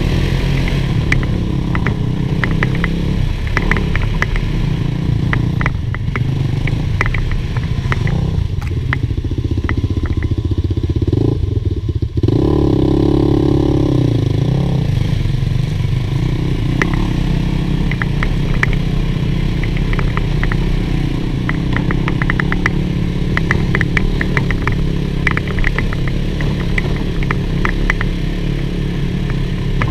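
Polaris Sportsman 450 ATV's single-cylinder engine pulling under load on a rocky uphill trail, with many short rattles and clicks as the machine jolts over the rocks. About twelve seconds in, the engine note drops off for a moment and then picks up again at a new pitch.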